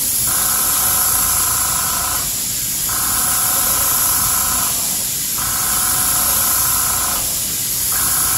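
NEOECO SJ81 gravity-feed dual-action airbrush spraying paint: a steady airy hiss, with a whistling tone on top that drops out briefly about every two and a half seconds.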